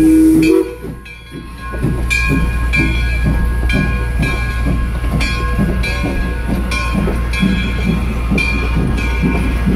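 A steam locomotive's whistle blows one long note that cuts off just under a second in. Then the train pulls out, its passenger coaches rolling past with a steady low rumble and a regular beat a little more than once a second.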